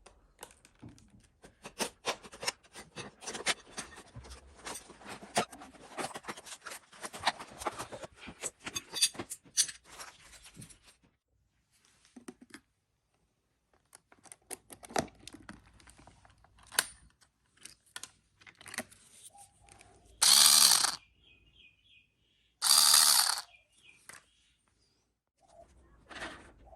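Security door lock being worked on by hand: dense metal clicking and rattling of lock parts, screws and tools, thinning out after about eleven seconds. Near the end come two loud bursts of a power tool, about a second each and two seconds apart.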